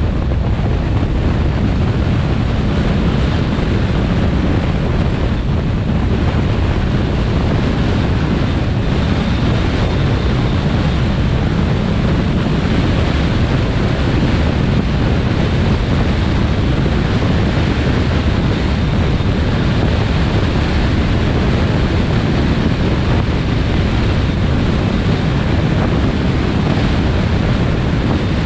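Steady wind rumble on the microphone and road noise from a vehicle driving along a highway at speed.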